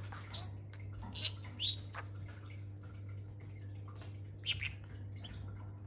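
Budgerigar giving short, high chirps in scattered bursts, one of them rising in pitch, over a steady low hum.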